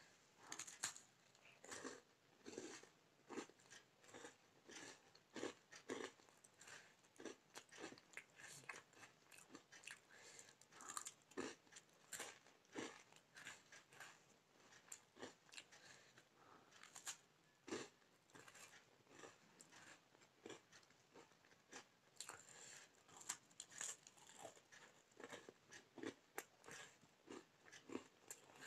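A person biting into and chewing a crisp round biscuit, many short crunches in irregular quick succession.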